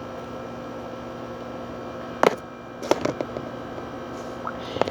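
Glue bottle and mixing bowl being handled while glue is poured: one sharp knock about two seconds in, then a few lighter clicks, over a steady electrical hum.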